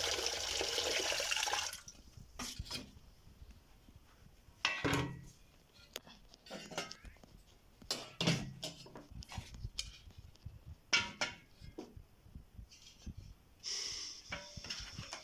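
Water running and then stopping about two seconds in, followed by scattered knocks and clinks of household things being handled, with another short stretch of running water near the end.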